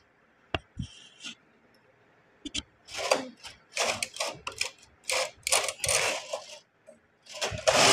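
Brother knitting machine being worked by hand: a few sharp clicks, then a run of short rasping, clattering strokes from the carriage and the metal needle bed, with the loudest near the end.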